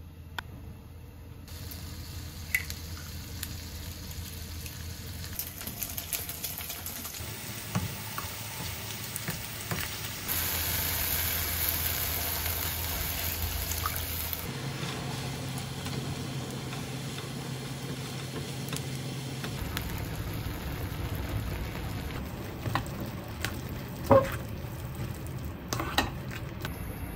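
Food sizzling in a non-stick frying pan on a gas hob, heard through several short cuts: tomatoes frying, water poured in, then ramen noodles stirred and tossed with tongs. Scattered clicks of utensils against the pan, with one sharp click near the end.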